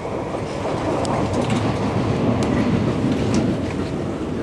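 Siemens Nexas electric multiple unit running along the track, heard from inside the carriage: a steady rumble of wheels on rail that swells a little midway, with scattered sharp clicks from the wheels over the track.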